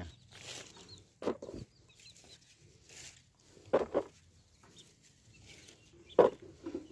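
Domestic chicken clucking, a few short calls a few seconds apart, over the light knocking of bricks being set into the plastic bed of a toy dump truck.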